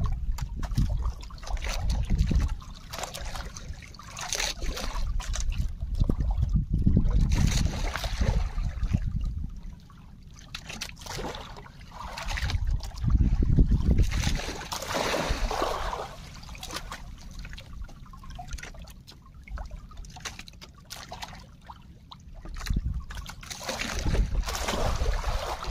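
Sea water splashing and trickling against a small boat's hull, rising and falling in uneven swells, with gusts of wind rumbling on the microphone.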